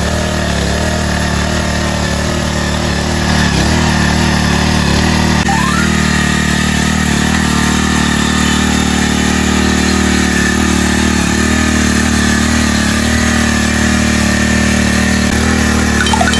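Kubota TMS200 mini cultivator's small petrol engine running steadily while its tines till the soil, getting a little louder about three seconds in.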